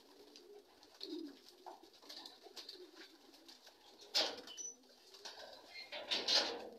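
Racing pigeons cooing softly in the loft, a low warbling that goes on throughout. Two brief louder rustles cut in, about four seconds and about six seconds in.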